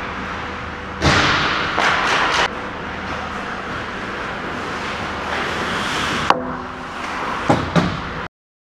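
Ice hockey play close to the goal: skates scraping and hissing on the ice, with a loud stretch of scraping about a second in, then three sharp clacks of stick or puck in the last two seconds. The sound cuts off abruptly near the end.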